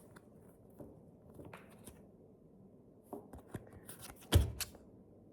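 Panini sticker packet being torn open and handled: quiet at first, then a run of sharp crinkles and clicks in the second half, the loudest about four seconds in.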